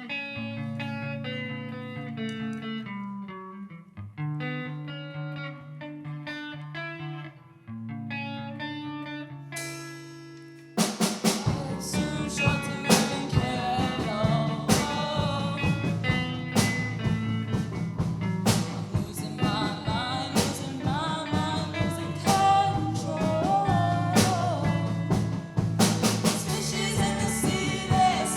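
A song played by a band. It opens with a picked guitar figure alone; about eleven seconds in the drums and full band come in, and a lead vocal begins singing a few seconds later.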